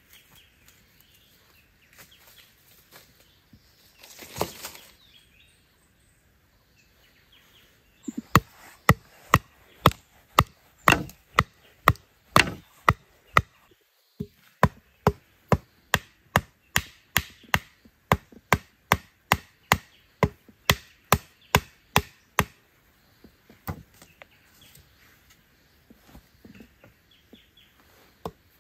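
Wooden stakes being driven into forest ground with a piece of wood used as a mallet: sharp wooden knocks, about two a second, with a short break midway and sparser knocks near the end. A brief rustle comes about four seconds in, before the knocking starts.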